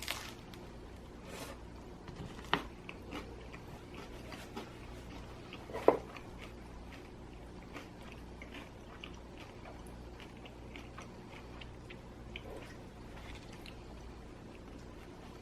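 A person chewing and biting crispy pizza close to the microphone: soft scattered crunches and mouth clicks, with two sharper snaps about two and a half and six seconds in.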